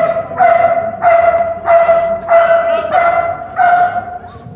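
Police K-9 Belgian Malinois barking in an even rhythm, about seven sharp, high-pitched barks a little over half a second apart, stopping near the end. It is guard barking at a decoy in a bite suit while the dog holds a down.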